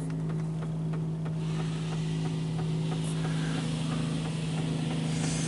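PDQ LaserWash 4000 touchless car wash heard from inside the car: a steady low machine hum, joined about a second and a half in by the hiss of water spraying against the car.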